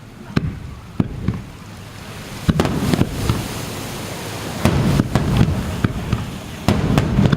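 Fireworks exploding: a run of sharp bangs, a few at first and then coming thicker from about two and a half seconds in, over a steady crackling hiss.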